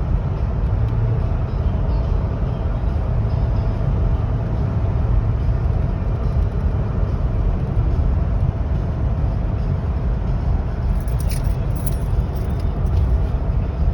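Steady low rumble of a motor vehicle running: engine and road noise.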